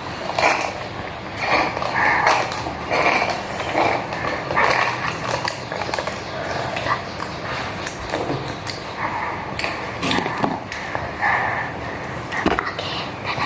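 Close-up chewing of crunchy food, with irregular crunches and clicks coming roughly once or twice a second.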